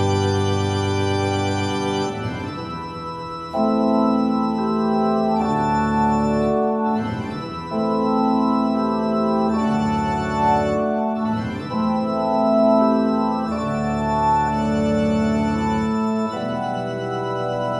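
Organ music: slow, held chords that change every two seconds or so, with a deep bass note sounding under some of them.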